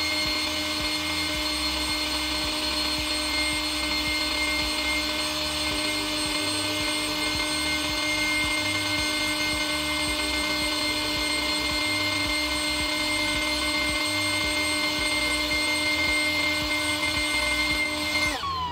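Saturn 12-volt electric inflatable-boat air pump running steadily in deflation mode, sucking the air out of the boat's tubes, with an even motor hum. Just before the end it is switched off and winds down, falling in pitch.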